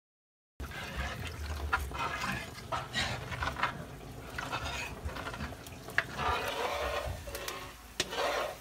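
A metal spatula stirring a wet, sticky mixture in a large metal wok for biko: liquid sloshing, with irregular scrapes and sharp clicks of the spatula against the pan. The sound starts abruptly about half a second in.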